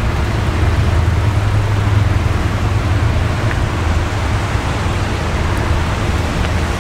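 Zotye T600 Turbo's engine idling steadily, a loud, even low hum heard from behind the car near its single exhaust.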